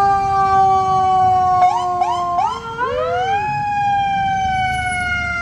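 Fire department emergency vehicle's electronic siren. It holds a long tone that sags slightly, gives three quick rising chirps about two seconds in, then glides up to a new held tone.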